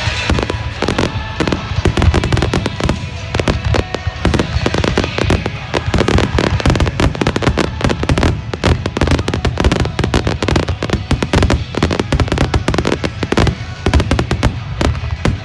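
A fireworks display going off in rapid succession: dense bangs and crackles over a continuous low rumble, with music playing along with the show.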